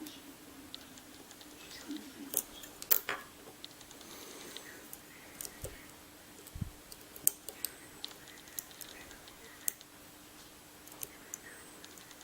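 Lock pick working the pins of a Medeco biaxial lock cylinder: small, irregular metallic clicks and ticks, with a faint steady hum underneath.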